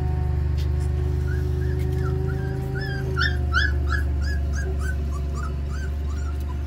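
Golden Retriever puppies whimpering and squeaking while they nurse: a quick run of short, high yelps, about three a second, starting about a second in and stopping near the end. A steady low hum runs underneath.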